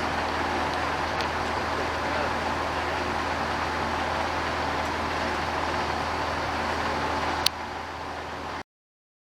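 Steady noise of a heavy downpour heard from a car, with the vehicle's low running hum underneath. A sharp click comes about seven and a half seconds in, the sound drops a little, and then it cuts off abruptly.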